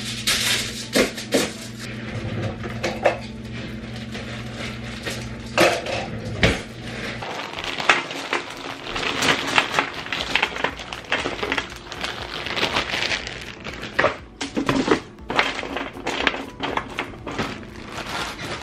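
Crinkle-cut fries poured from a plastic bag onto a foil-lined baking sheet: foil crinkling, the bag rustling and the fries clattering onto the tray in many irregular small clicks.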